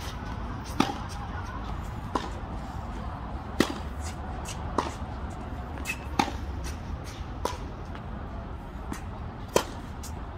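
Tennis racket strings striking a tennis ball again and again in a practice rally: a sharp pop about every second and a quarter, some hits louder than others, with fainter bounces between.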